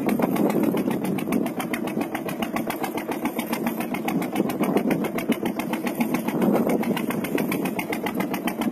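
Boat engine running steadily at constant speed, with a rapid, even firing beat.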